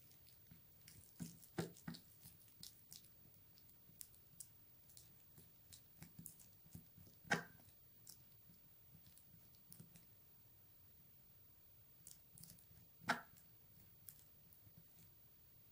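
Metal spoon stirring and scraping a thick, sticky paste in a small glass jar: faint scrapes and soft clicks throughout, with two sharper knocks of the spoon against the glass, a little past halfway and again about five seconds later.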